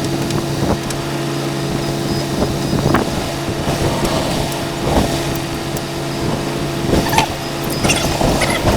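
A steady engine hum runs throughout. Over it come short, scattered knocks and clicks of tools and parts being handled during reassembly of the excavator's condenser fan and its surrounding panels.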